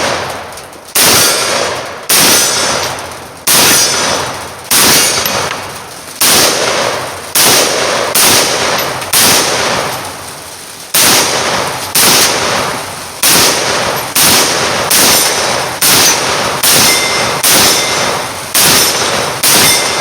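Palmetto State Armory GF3 AK-47 pistol in 7.62×39 firing semi-automatic, about two dozen loud shots each followed by a ringing echo. Slow fire about a second apart at first, a short pause about halfway, then a quicker, steady string of shots.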